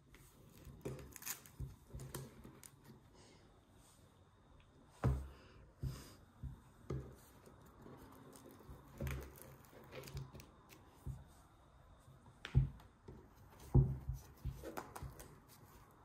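Hands working a buckle frame: straps and buckles handled, fabric flaps rustling and being folded open, with scattered small clicks and a few short soft thumps, the loudest near the end.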